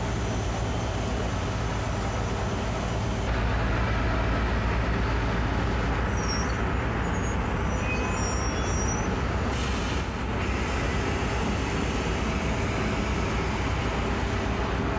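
Steady rumble and hum of engines idling on an airport apron, from an apron bus and a parked jet airliner, with faint high whistles in the middle and a short hiss of air about ten seconds in.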